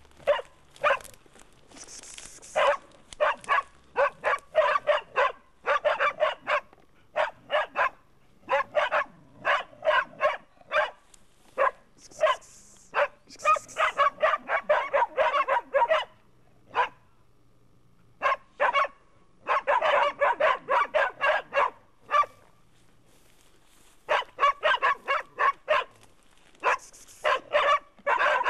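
Pig dog barking at a bailed wild pig (a sow): fast runs of sharp barks with short pauses. This is the bay that tells hunters the dog has the pig held up.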